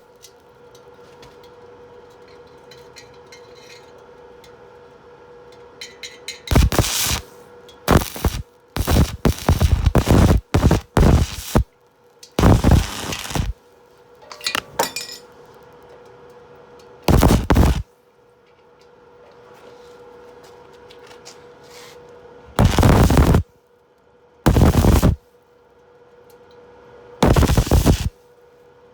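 Electric arc welding on a steel tank: a string of short, loud crackling bursts of the arc, each half a second to a second long, struck again and again with pauses between, over a steady faint hum.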